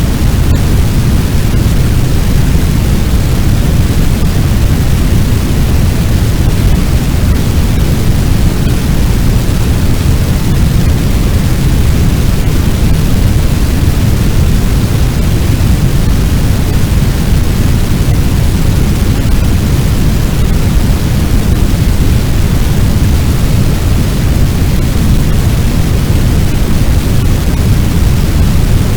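Fire sound effect: a loud, steady low roar like a large blaze, with no distinct crackles or bangs.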